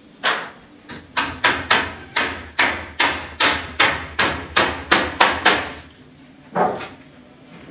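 Hammer blows: a quick run of about fifteen strikes, two to three a second, that stops after about five seconds, then one more blow a second later.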